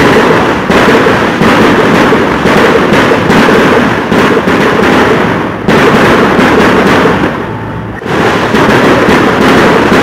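Fireworks and firecrackers going off in a dense, continuous crackling barrage. It eases off briefly past the middle, then starts up again sharply about eight seconds in.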